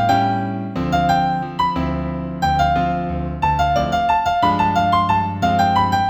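Piano music in C major at a moderate tempo of about 90 beats a minute: a melody of single struck notes over lower accompanying notes, each note ringing and fading.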